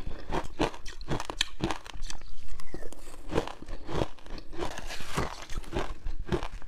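Frozen passion fruit ice being bitten again and again, each bite a quick run of sharp crunches and cracks, several a second.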